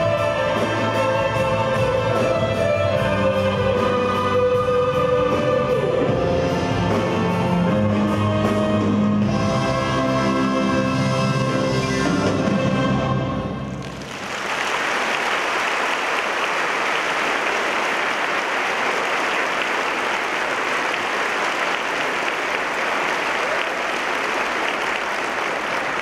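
Children's choir and orchestra, with recorders, playing the last bars of a song, which ends a little past halfway. Then a large audience applauds steadily.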